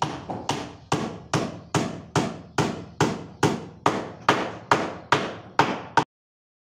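Steel claw hammer driving nails into a wooden floorboard, a steady run of about fifteen sharp strikes, roughly two and a half a second, that stops abruptly near the end.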